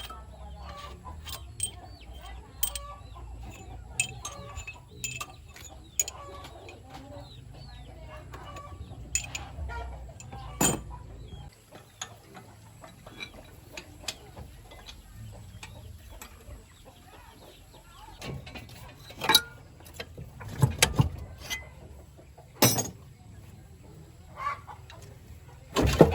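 Irregular sharp knocks and clicks, with chickens clucking in the background. A low hum stops about halfway through, and the knocks come loudest and thickest near the end.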